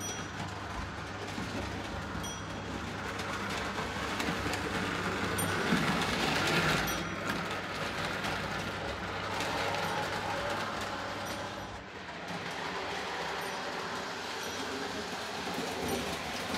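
Postwar Lionel O gauge train running on three-rail tinplate track: a steady rumble and rattle of wheels on rails, loudest as the cars pass close about six to seven seconds in. A steady low hum lies under it for the first five seconds.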